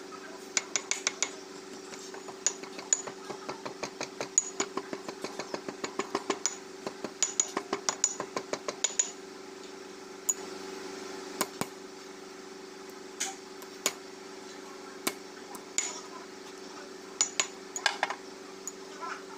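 Hammer tapping a seal down into the bore of a steel tractor hub, metal on metal. A quick, even run of about three or four taps a second for the first half, then a few scattered single and paired taps.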